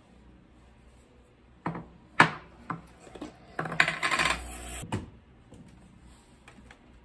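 Knocks and clinks of a metal espresso portafilter and a coffee can being handled on a tile countertop, the loudest knock about two seconds in, then about a second of scraping and rattling that ends in a sharp click.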